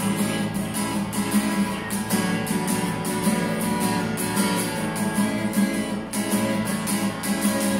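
Acoustic guitar strummed in a steady rhythm, chord after chord.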